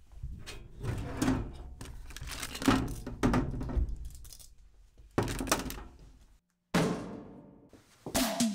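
Irregular thunks and knocks of a grey office cabinet being opened and handled, several separate impacts with quiet stretches between them.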